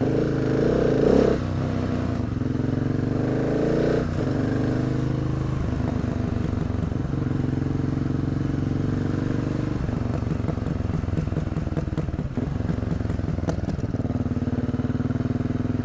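Husqvarna 701 Supermoto's single-cylinder engine being ridden, revving hard at first and then running on. Its exhaust pops and crackles repeatedly on the overrun when he rolls off the throttle, a sign of fuel mapping set through a Power Commander to make it bang on deceleration.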